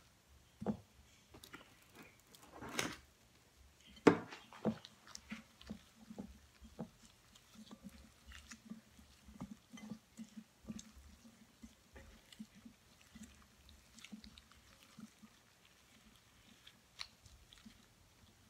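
Gloved hands packing sticky-rice stuffing tightly into a deboned whole chicken: soft, irregular wet squishing and pressing sounds, with a few sharper knocks, the loudest about four seconds in.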